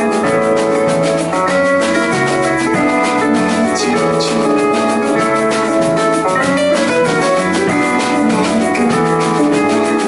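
A small live band plays an instrumental passage, with acoustic and electric guitars, a keyboard and a drum kit keeping a steady beat.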